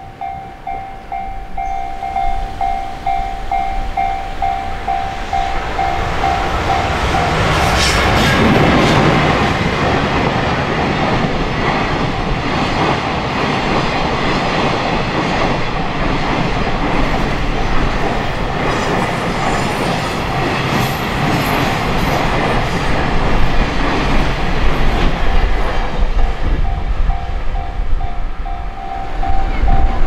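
A railroad crossing's electronic warning bell dings over and over while a train passes over the JR Kyoto Line with a wheel clatter. The train noise swells to its loudest about eight seconds in and drowns out the bell, which comes through again near the end.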